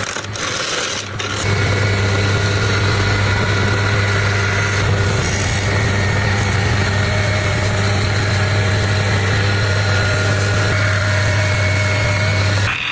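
A power woodworking machine's electric motor running steadily with a strong low hum and a few steady higher tones. The sound sets in about a second and a half in and stops just before the end.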